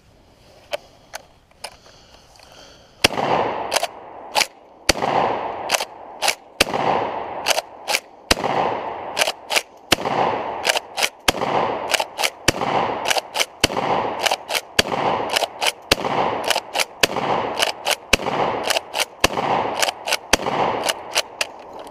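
UTAS UTS-15 12-gauge pump-action shotgun fired in a long, rapid string of shots about one a second, starting about three seconds in. A few light clicks come before the first shot.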